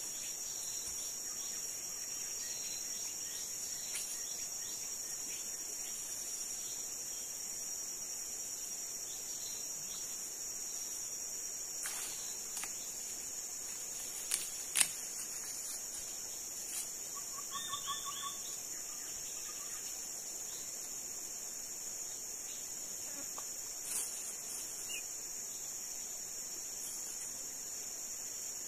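Steady high-pitched insect chorus, with a few sharp knocks about halfway through and a brief chirping trill soon after.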